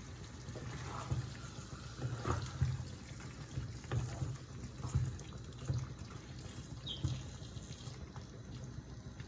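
Spoon stirring raw chicken into a wet masala paste in a pan: irregular, wet squelching strokes about once a second, stopping about seven seconds in.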